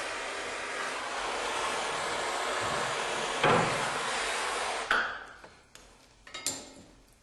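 Plumber's torch burning with a steady hiss while heating a soldered copper pipe joint to free it. The flame shuts off about five seconds in, followed by a few short metallic knocks and clinks.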